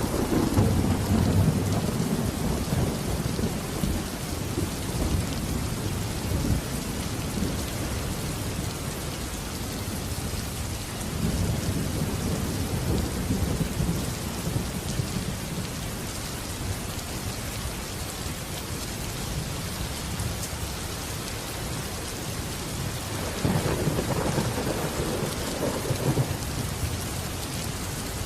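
Steady rain falling, with thunder rumbling three times: once at the start, again about a third of the way through, and once more near the end.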